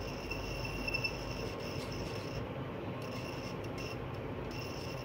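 High, steady electronic tone from the science kit's small speaker, sounding in stretches and cutting out twice. It sounds whenever the two parts of the kit's circuit touch, which in this game marks a failed attempt.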